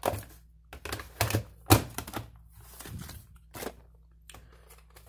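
Plastic clicks and knocks from a VHS cassette and its plastic case being handled and set down: about half a dozen irregular taps, the loudest about 1.7 s in.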